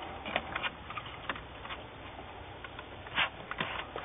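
Small scattered clicks and rustles of plastic and ribbon cable as the replacement keyboard's interconnect is handled and fitted into its socket on the laptop board, with a louder brief scrape about three seconds in.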